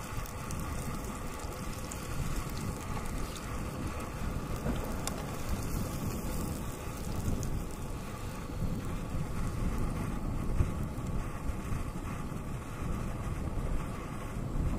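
Wind buffeting the microphone with a low, uneven rumble, over a steady hiss from a gas canister camp stove and croutons frying in oil and butter in the pan.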